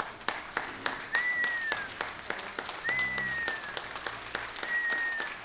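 Audience applauding with many hands clapping. Three short whistles falling in pitch come about a second in, about three seconds in, and near the end.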